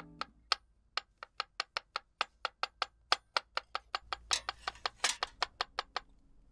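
Kitchen cleaver chopping garlic on a cutting board: sharp, steady knocks about four or five a second.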